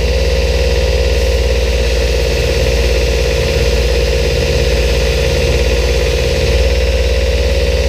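Belt grinder's motor and belt running steadily, with a knife blade held against the belt to clean it up after heat treatment.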